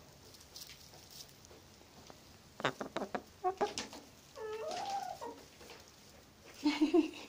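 Hens clucking close up: a few sharp taps about two and a half to four seconds in, then a drawn-out call that rises and falls, and short low clucks near the end.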